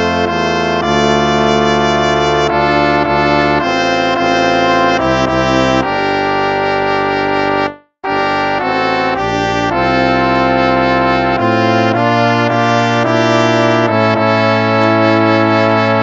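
Instrumental hymn played as sustained brass chords, with a brief break about halfway through before the next phrase begins.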